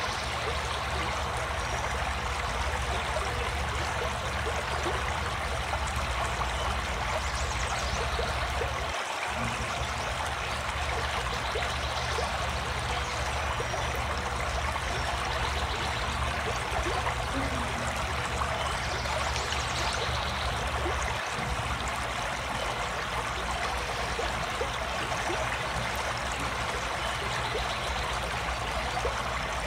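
A steady, even rushing noise over a low hum, unchanging throughout.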